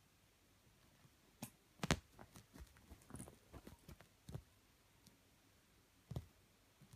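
A cat pawing and biting at a bed sheet: a flurry of short scratches, rustles and soft thumps of the cloth that starts after about a second and a half and lasts about three seconds, then one more thump near the end.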